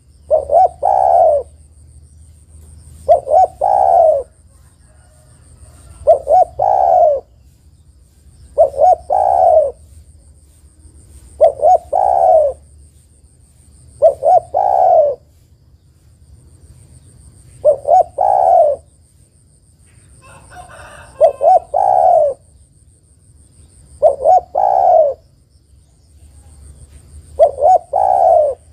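Spotted dove cooing: a phrase of two short notes and then a longer rolling coo, repeated about every three seconds, ten times. It is offered as a female calling to set male doves calling.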